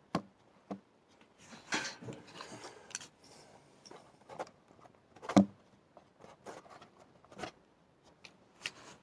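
Handling noise from the camera being repositioned: rubbing and rustling with scattered small clicks and knocks, the loudest knock about five seconds in.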